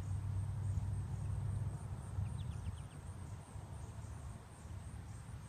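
Outdoor storm ambience: a low rumble, strongest in the first couple of seconds and easing after, over a faint high steady buzz, with a few quick chirps about halfway through.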